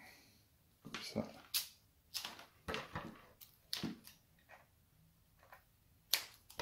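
Tesa adhesive tape being pulled off its roll in short rips, about a dozen spread out with pauses between them.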